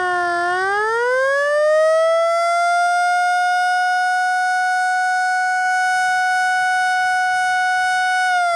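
Federal Signal Model L 8-port electromechanical siren sounding an attack signal. Its single tone dips low, winds back up within the first couple of seconds, holds a steady high pitch for several seconds, then starts to fall near the end.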